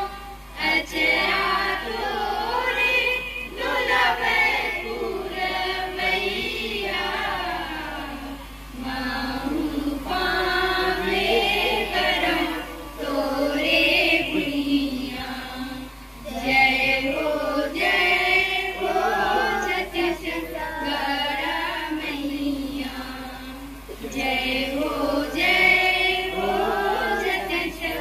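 A group of girls singing together in chorus, a devotional chant-like song, with short breaks between phrases about 9, 16 and 24 seconds in.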